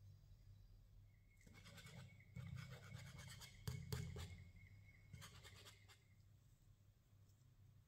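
Wire whisk stirring and scraping through flour and liquid in a glass mixing bowl, a quick run of scratchy strokes and clicks from about a second and a half in until about six seconds, with a couple of sharper knocks in the middle.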